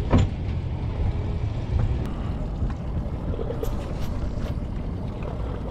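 Steady low rumble of the boat's small Yamaha 9.9 kicker outboard running at trolling idle. A sharp knock comes just after the start, and a few faint clicks sound a little past halfway.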